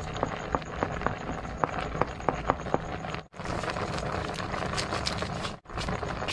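A pot of octopus boiling with a steady noisy bubbling, over which a dozen or so sharp clicks and taps sound in the first half as chopped onion and garlic are scraped off a wooden cutting board into the pot. The sound cuts out briefly twice in the second half.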